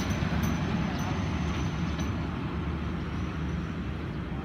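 Express passenger train rolling away along the rails: a steady rumble of wheels on track that slowly fades as the carriages recede, with a few faint clicks.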